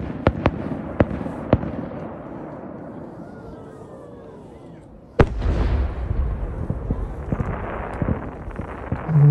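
Aerial fireworks shells: a quick run of sharp cracks in the first second and a half, then a heavy boom about five seconds in as a shell bursts, followed by a long rumble.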